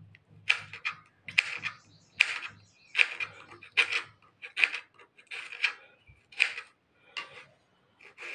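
Knife slicing through a tomato onto a cutting board, a dozen or so cuts at an even, unhurried pace, each ending in a short tap of the blade on the board.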